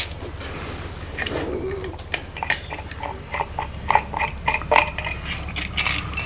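Small metal parts clinking and clattering: a string of light clicks and knocks with short metallic ringing as bolts and tools are handled, busier from about a second in.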